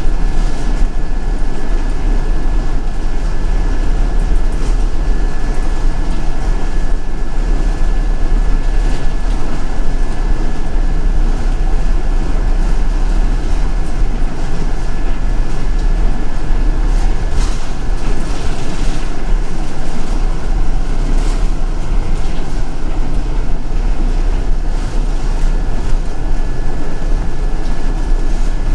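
Inside a moving city bus: a steady low engine and road rumble with scattered rattles, and a thin steady high whine running under it.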